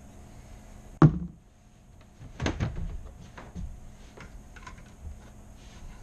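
Handling knocks on plastic: a sharp thump about a second in, a quick cluster of knocks about a second and a half later, then scattered light clicks.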